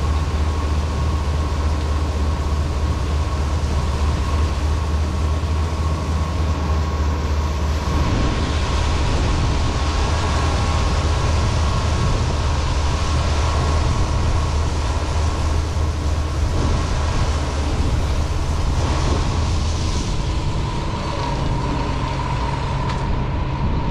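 John Deere 9500 combine's six-cylinder turbocharged diesel running, a heavy low drone with a steady high whine over it; the drone changes about a third of the way in and eases a little near the end.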